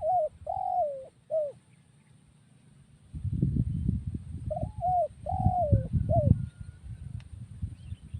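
Spotted dove (terkukur) cooing: a three-note phrase at the start and again about four and a half seconds later. A low rumbling noise runs under the second phrase, loudest in its middle.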